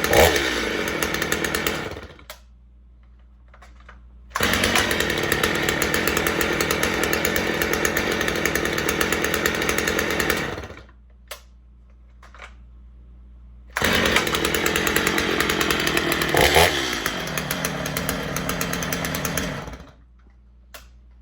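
Gas chainsaw running steadily in three stretches, each cutting off abruptly, with short quiet gaps between.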